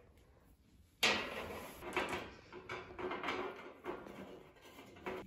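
Knocks and clatter of metal handles and brackets being handled against a black metal griddle lid: one sharp knock about a second in, the loudest, then several lighter knocks.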